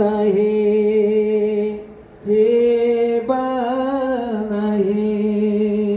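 A man singing a Garhwali folk song unaccompanied into a microphone, holding long drawn-out notes, with a brief breath about two seconds in.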